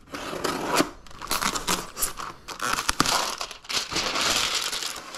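A small blade slitting the tape along the edge of a cardboard box, then a clear plastic sheet being pulled off the box and crinkling.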